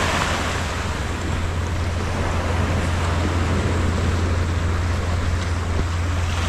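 Small waves washing onto a sand and pebble beach, a steady surf hiss, with wind rumbling low on the microphone.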